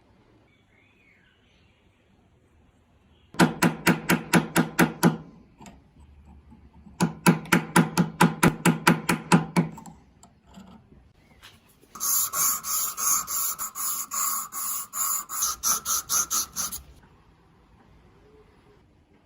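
A hand tool scraping rusty metal in quick back-and-forth strokes, about five or six a second. It comes in three runs: a short one, a longer one, and a last, longest run that is higher-pitched and harsher.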